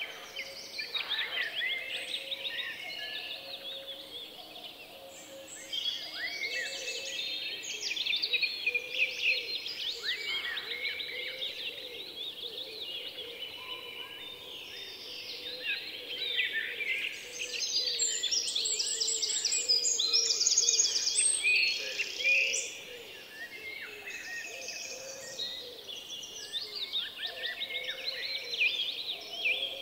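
Many birds chirping and calling together in a dense, continuous chorus of short, quick calls. The calls grow louder and higher for a few seconds just past the middle.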